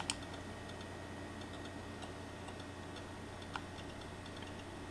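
A quick double mouse click, then faint irregular ticking over a steady low hum from the computer, with one more click about three and a half seconds in.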